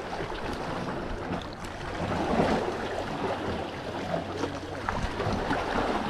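Steady wash of the sea against the rocks of a breakwater, with wind on the microphone.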